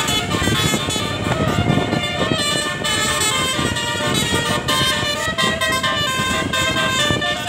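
A bus's basuri (telolet) multi-tone air horn playing a tune, its notes changing every fraction of a second, over a low rumble of vehicle noise.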